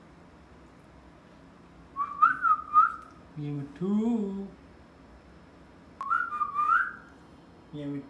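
Pet Alexandrine parakeet whistling and mimicking. It gives two short runs of fluttering whistle notes, each followed by a brief low, speech-like sound that rises and falls in pitch.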